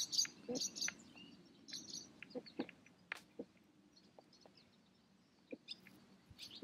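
Faint, scattered small clicks and rustles of hands working banding pliers to close a metal leg band on a mourning dove held in the hand. The clicks are busiest in the first couple of seconds, and there is a quieter stretch before a few more clicks near the end.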